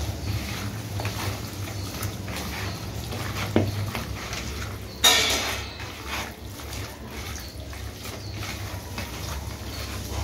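Raw chicken pieces being mixed by hand in a wet spice marinade: soft squelching and scraping, with one louder noisy squish about halfway, over a steady low hum.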